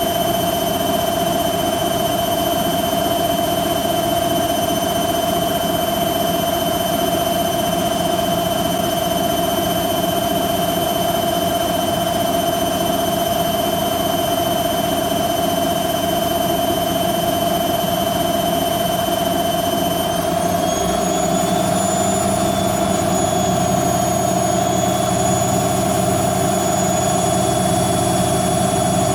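Hoover Quattro washing machine in its fast final spin, with a steady hum and a high motor whine from the drum spinning at speed. About twenty seconds in, the whine rises a little in pitch as the spin speed climbs.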